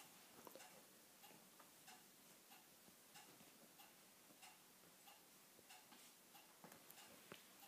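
Faint, steady, even ticking of a clock in an otherwise near-silent room.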